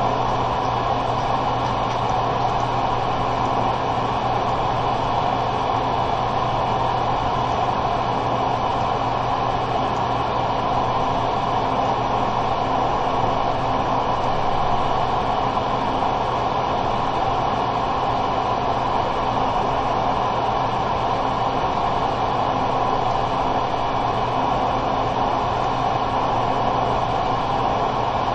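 Steady, unchanging hiss and hum with no events in it: constant background noise on the screen recording's sound track.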